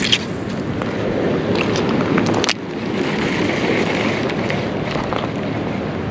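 Steady rumbling rustle of handling noise on a body-worn camera's microphone while a baitcasting reel is cranked, with a few sharp clicks. The noise drops out suddenly for a moment about halfway through.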